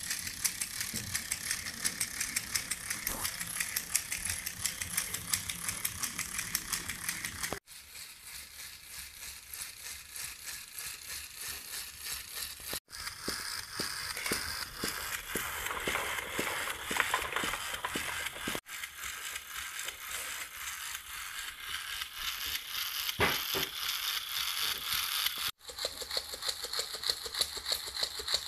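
Small electric Lego Technic motor driving plastic gears and walking legs, with a fast clicking, rattling clatter of the plastic parts. The sound breaks off abruptly four times and starts again.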